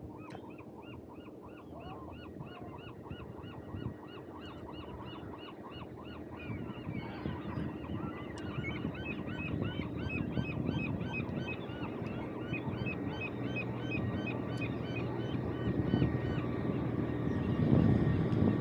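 Coast Guard boat's engine running as a low rumble that grows steadily louder. Over it, a high, evenly repeated chirping call goes on throughout at about three a second.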